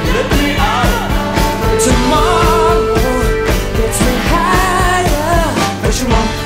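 Rock song with a lead vocal over a steady drum beat.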